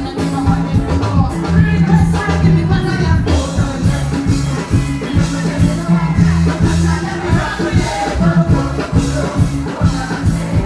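Loud music with a steady bass line and a regular drum beat.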